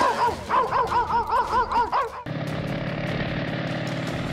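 A pitched sound that rises and falls about four times a second for two seconds, then a vehicle engine starts a steady hum about two seconds in.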